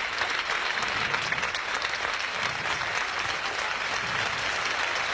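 A large crowd applauding, dense and steady clapping.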